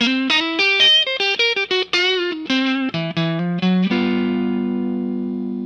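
Guitar intro music: a quick run of plucked notes, then a chord struck about four seconds in that rings on and slowly fades.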